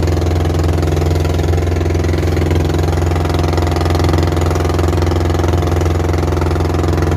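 Long-tail boat's engine running loud and steady, with no change in speed.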